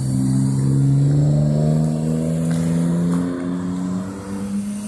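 Engine of a road vehicle accelerating past close by: a loud low drone that holds for about three seconds, then changes pitch and fades.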